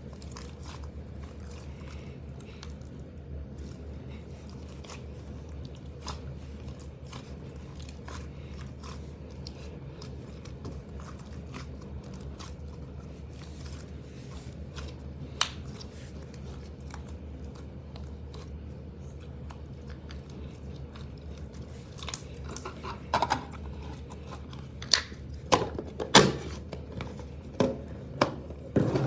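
Slime being squished and poked, with scattered small sticky clicks and crackles and louder pops in the last several seconds, over a steady low hum.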